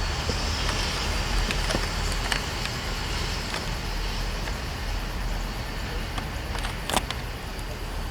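Norfolk Southern train rolling past: a steady rumble with a few sharp clacks from the wheels, the loudest about seven seconds in.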